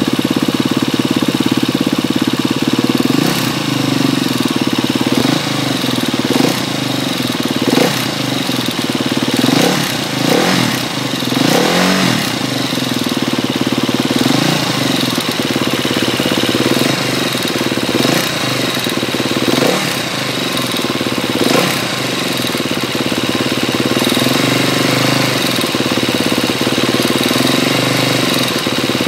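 2012 KTM 250 EXC-F's single-cylinder four-stroke engine idling with a ticking noise, blipped several times in the first half and again past the middle. The owner dislikes the tick and links it to the cam chain tensioner.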